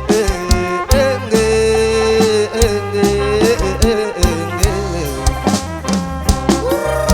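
Kantrum band playing live between sung verses: a lead melody sliding and bending in pitch over sustained bass and regular drum strikes.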